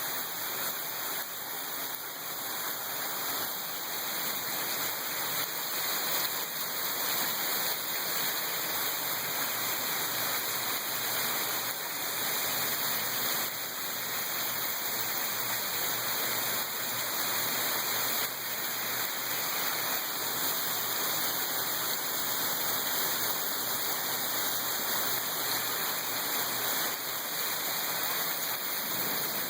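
Heavy rain pouring down, a steady, even rush of noise.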